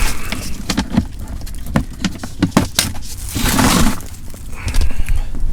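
Clicks, knocks and rustling as small things are handled and moved about, over a steady low rumble of strong wind.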